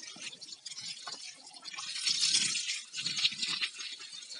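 Water being poured onto soil, splashing and soaking in with an irregular crackle that swells twice around the middle.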